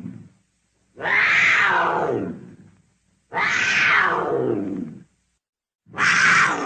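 A cat giving long meow-like calls one after another, each about a second and a half long and falling in pitch, with short silent gaps between them.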